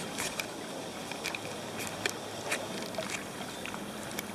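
Shallow pond water sloshing and trickling, with scattered small sharp clicks.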